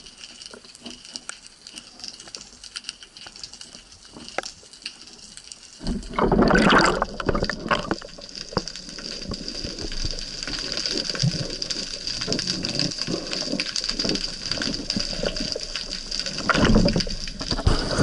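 Water heard through an underwater camera: faint scattered crackling clicks at first, then about six seconds in a sudden loud rush of water that carries on as churning and sloshing as the camera moves just under the surface, with a second loud surge near the end.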